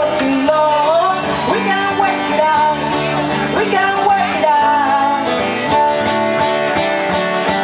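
Live acoustic band: a woman singing through a microphone, backed by a plucked upright double bass and a strummed acoustic guitar.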